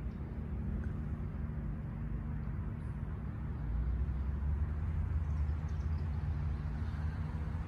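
Low, steady outdoor rumble, a little louder for a few seconds midway.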